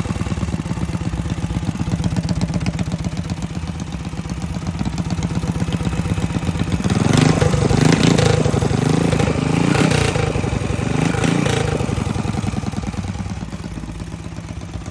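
Racing banca boat engine running with a rapid, even firing beat, then revved up and down several times from about seven seconds in before settling back and fading near the end.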